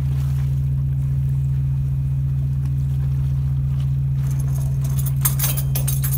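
Steady low drone of the ship's machinery. About four seconds in, a run of light metallic clinks and jangles starts.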